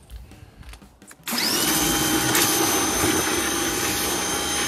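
Electric pressure washer starting up a little over a second in and running steadily with a high motor whine, as its wand sprays water.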